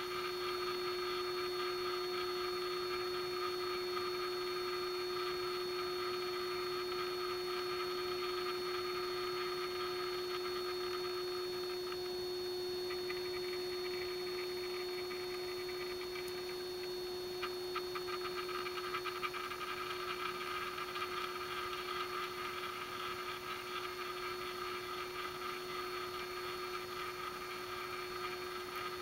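Steady hum and whir of the small electric motor turning a rotating display turntable, with a few faint clicks about two-thirds of the way through.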